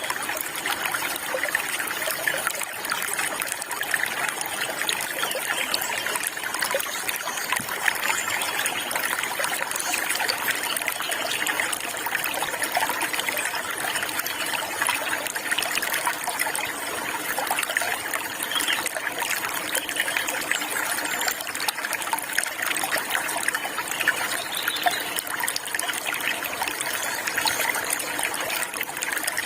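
Small stream of water running and trickling steadily, a continuous even splashing.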